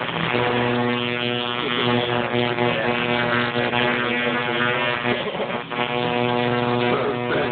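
Tattoo machine buzzing steadily at a constant pitch.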